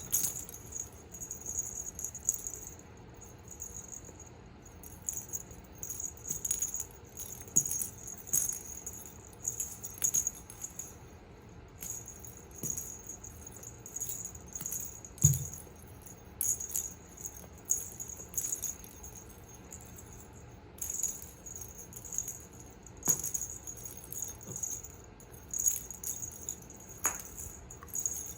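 Small bell jingling and rattling in short, irregular bursts, with light clicks in between. There is a single low thump about 15 seconds in.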